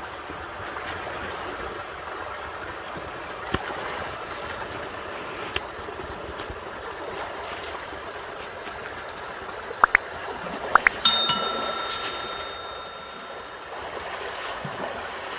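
Steady rush of running spring water. About ten seconds in come a few sharp clicks, then a single bicycle bell ring that fades over about two seconds.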